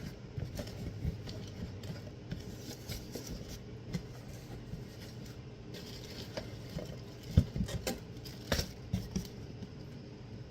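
Scattered handling noises of an unboxing: light rustles and taps from packaging and hats being handled, with a couple of louder knocks near the middle, over a low steady hum.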